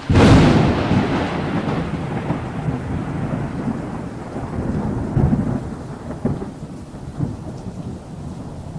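Thunder: a sudden loud crack, then a low rolling rumble that swells and fades several times, over steady rain.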